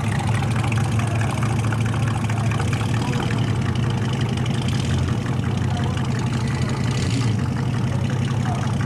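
Classic Opel's tuned engine idling steadily, with no revs, and a brief hiss about seven seconds in.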